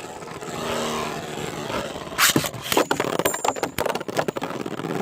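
A 3D-printed beyblade and a Hasbro Spriggan spinning against each other in a beyblade stadium: a steady whirring scrape, then sharp clashes about two seconds in and a quick run of clicking hits a second later.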